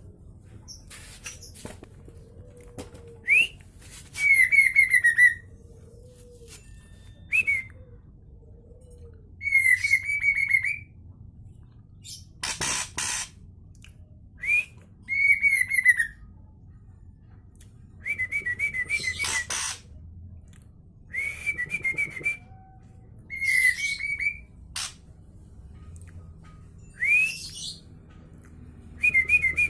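Juvenile white-rumped shama singing in short, loud bursts every couple of seconds: rising whistled notes and quick trilled runs, with one harsh rasping note about halfway through.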